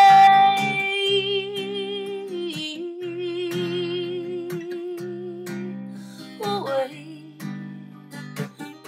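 Song with a singer holding a long note with vibrato over strummed acoustic guitar. The note steps down about two and a half seconds in and slides downward near the end, while the guitar chords ring on.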